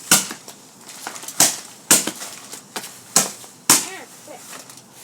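Small consumer fireworks going off in a string of sharp cracks and pops at irregular intervals, about five loud ones with smaller pops between.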